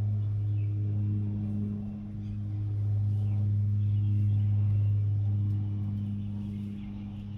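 A steady low droning hum that swells and fades slowly, dipping about two seconds in and again near the end, with faint bird calls above it.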